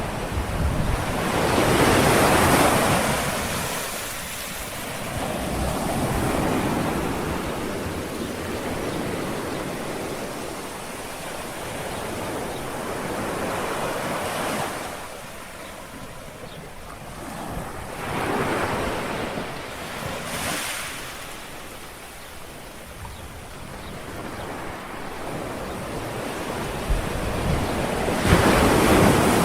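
Small sea waves lapping and washing onto a shore, each one swelling and then fading, several in a row with the loudest a couple of seconds in and near the end.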